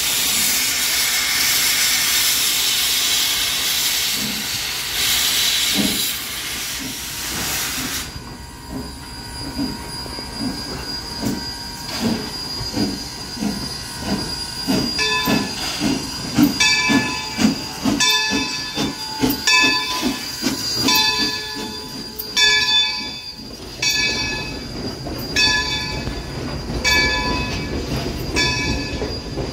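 Baldwin 0-6-0 steam switcher #26 moving slowly: steam hisses from its open cylinder cocks for the first several seconds and cuts off, then soft exhaust chuffs come about twice a second. From about halfway on, a bell rings about once a second.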